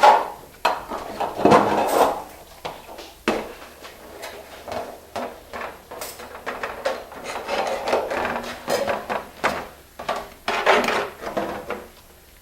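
Sheet copper roofing pan being handled and folded along its edges, with irregular scraping and rubbing and scattered knocks.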